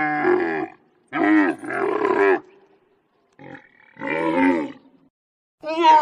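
A camel calling: a run of about five pitched, wavering calls, each up to about a second long, with short pauses between them.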